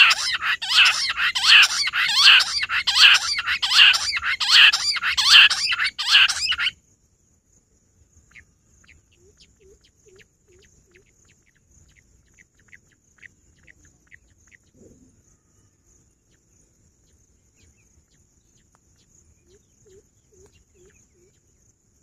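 Bush quail calling loudly in a rapid series of shrill whistled notes, about two a second, which stops suddenly about seven seconds in. After that only faint scattered chirps and a faint steady high insect whine remain.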